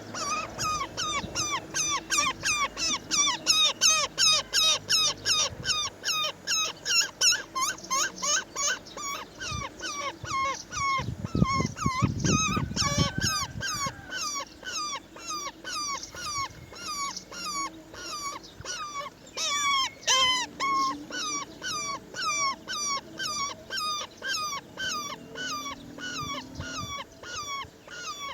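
Roller nestlings begging: a fast, insistent string of short, harsh calls, about three a second, that never lets up. About halfway through, a low rustling thump sounds briefly under the calls.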